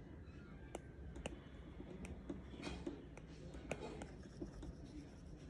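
iPad stylus tapping and drawing strokes on the tablet's glass screen, a scattering of light clicks at irregular intervals over faint steady background noise.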